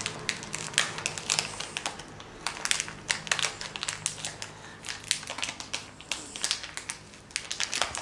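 Small clear plastic bag crinkling and crackling as it is worked open by hand, in many quick irregular crackles.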